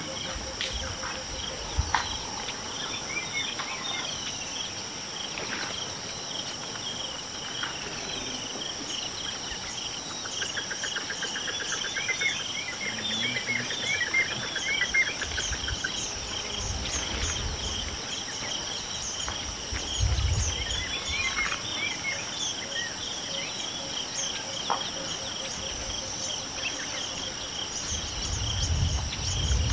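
Steady chorus of insects making two constant high-pitched drones, with birds chirping and trilling over it. A few short low rumbles come in about two-thirds of the way through and again near the end.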